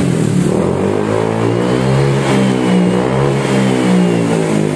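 Honda PCX 160 scooter's single-cylinder engine revving through a custom SKR racing exhaust, the revs rising and falling twice. The exhaust note is the second revision, tuned to a mellower ('adem') tone the owner accepted.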